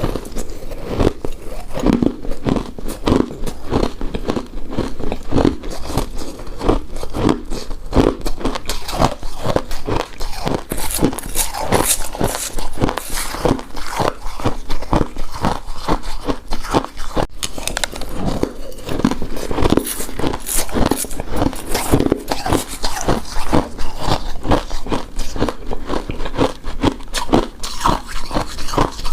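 Close-miked chewing of a soft, chewy rice cake coated in shredded coconut: a continuous run of wet, sticky chewing and mouth sounds.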